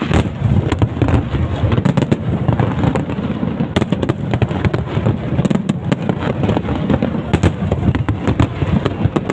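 Fireworks display going off in a dense, continuous barrage: many rapid cracks and bangs over a deep rolling rumble.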